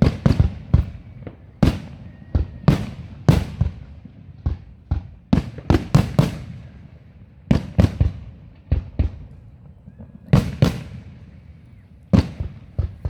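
Fireworks going off in the grand finale of a display: a dense, irregular string of sharp bangs, several often coming in quick clusters.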